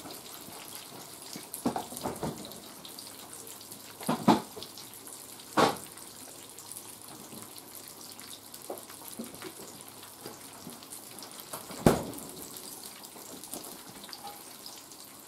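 Oil sizzling and crackling steadily in a frying skillet, broken by a few sharp knocks, the loudest near the end.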